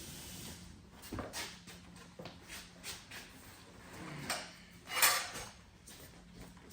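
Scattered knocks and short scrapes of workshop handling, with a louder scraping rush about five seconds in.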